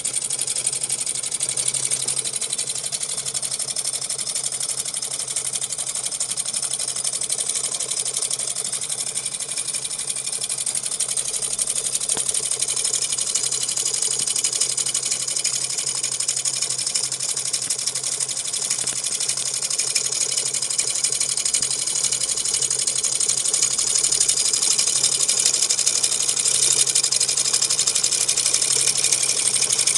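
Homemade tin-can hybrid hot-air (Stirling-type) engine running at high speed, giving a rapid, even mechanical rattle that is mostly high-pitched over a faint low hum. It grows a little louder in the last few seconds.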